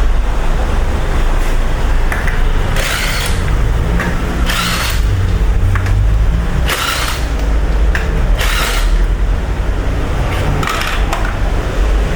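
A power tool run in about five short bursts, roughly one every two seconds, over a steady low rumble, as fasteners come off the front of the engine during water pump removal.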